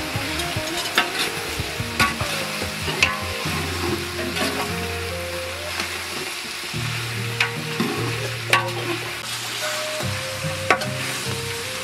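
Chopped rooster meat sizzling in a large aluminium pot while a metal ladle stirs it, the ladle clicking and scraping against the pot side now and then.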